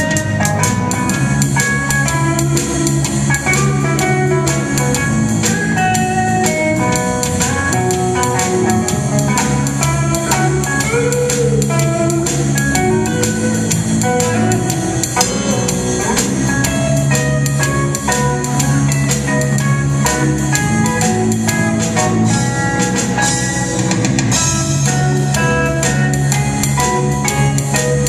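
Live rock band playing an instrumental passage: guitars over a drum kit with steady cymbal and drum hits.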